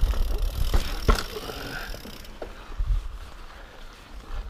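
Mountain bike riding over sandstone slickrock: a low rumble of tyres on rock with scattered knocks and rattles from the bike, one sharp knock about a second in. It gets quieter after about two seconds.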